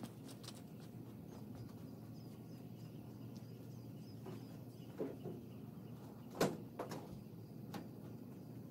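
Faint outdoor ambience with a low steady hum, broken by a few short knocks, the loudest about six and a half seconds in.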